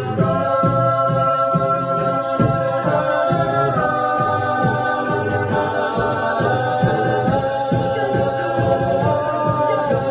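An a cappella group sings held wordless chords that shift every second or two, over beatboxed vocal percussion that keeps a steady beat.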